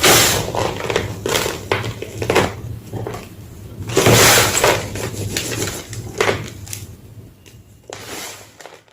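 Slabs of gym chalk crunching and breaking in a series of crisp crunches, loudest at the start and around four seconds in. A low steady hum runs underneath.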